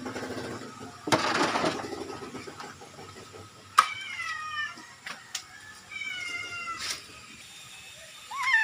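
Orange-and-white domestic cat meowing: two drawn-out meows that fall in pitch, about four and six seconds in, with a third starting near the end. A short burst of noise comes about a second in, and a sharp click just before the first meow.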